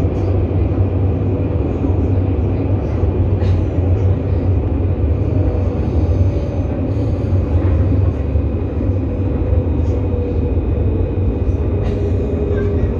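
Steady rumble of a tram in motion, heard from inside the car: wheels on the rails and the car running along the track.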